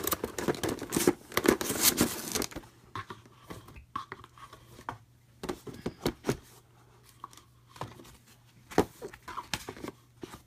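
Plastic packaging crinkling and rustling as game miniatures are packed back into their box, loudest in the first two to three seconds, then scattered light taps and clicks of handling.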